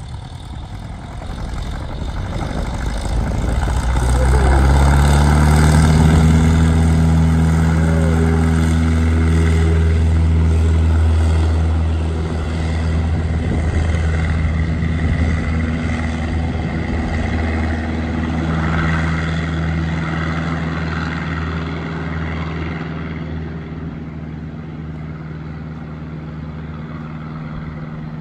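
Light single-engine floatplane at full power on its takeoff run, its propeller and engine running with a steady drone. The sound swells to its loudest about six seconds in as the plane comes up to speed on the water, then fades slowly as it lifts off and climbs away.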